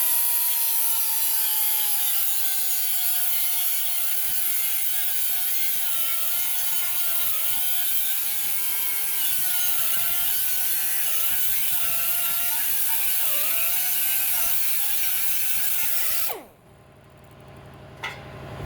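Cut-off wheel cutting through a steel exhaust pipe: a steady shrill grinding with a whine that wavers and dips in pitch as the wheel bites. About 16 seconds in it stops and winds down quickly.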